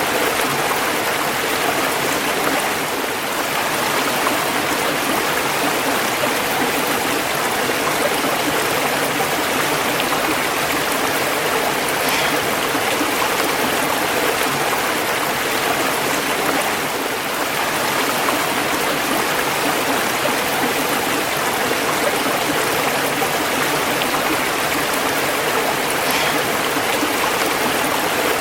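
Running water of a stream with small waterfalls, rushing steadily.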